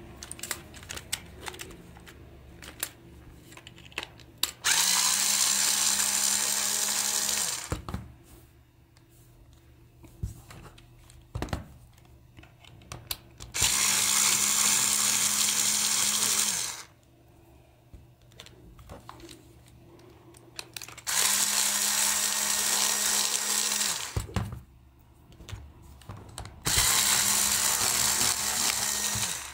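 Cordless electric screwdriver running in four bursts of about three seconds each, turning screws in a plastic toy's casing, with a steady whine. Small plastic clicks and knocks between the runs.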